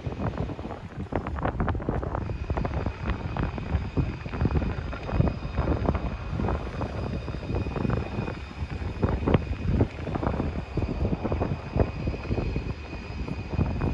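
Street noise: a steady low rumble of road traffic, with many irregular short knocks and a faint steady high-pitched whine from about two seconds in.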